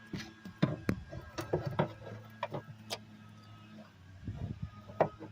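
Irregular light clicks and knocks of the seat belt retractor assembly being handled and moved against the pillar trim, with a faint steady low hum underneath; two sharper knocks come near the end.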